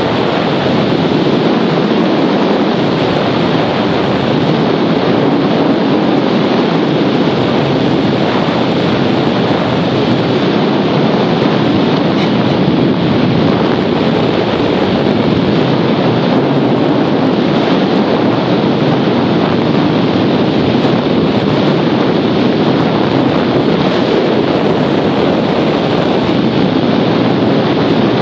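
Steady, loud rush of airflow over the microphone of a camera riding on a hang glider in flight.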